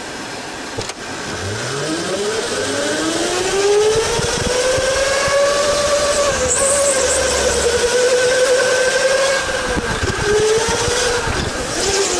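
Electric go-kart motor whining as the kart pulls away, its pitch rising steadily for a few seconds and then holding with small dips as the speed changes. Brief high squeals come about halfway through and again near the end.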